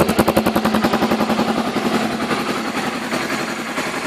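Honda XRE 300's single-cylinder four-stroke engine idling through a Roncar Coyote two-way exhaust set to its silent position, which gives close to the stock exhaust note. The exhaust beats evenly at about ten a second, turning quieter and smoother about one and a half seconds in.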